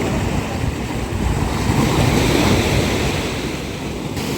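Sea surf washing onto a beach, with wind buffeting the microphone as a low rumble. A wave swells up and breaks a couple of seconds in.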